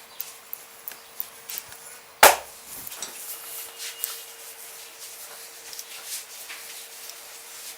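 Hand strikes of an Indian head massage: a run of light taps, then one loud sharp slap a little over two seconds in, followed by softer rubbing and scratching on the scalp.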